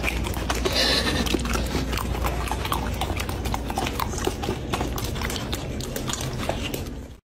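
Golden retriever puppy licking and chewing food off a metal spoon: rapid, irregular clicks and smacks that cut off suddenly near the end.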